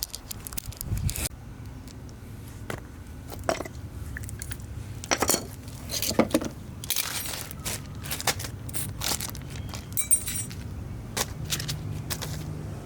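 Scattered light metallic clicks and clinks of hand tools and small parts being handled, over a low steady hum, with a brief high squeak about ten seconds in.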